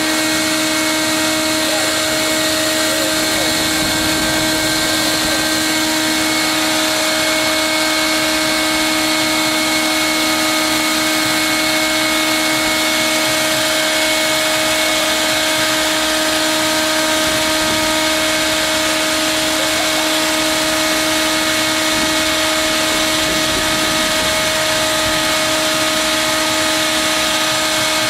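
Electric air blower for inflating water walking balls running steadily, a constant hum and rush of air that does not change.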